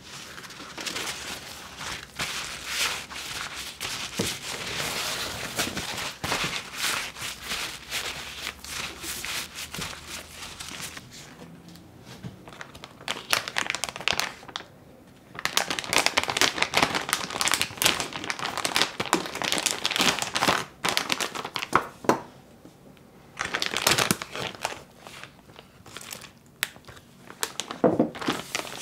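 Paper towel rustling and crinkling as hands pat a pork tenderloin dry. From about halfway through, a plastic zip-top freezer bag crinkles in short bursts as it is opened and the meat is slid into it.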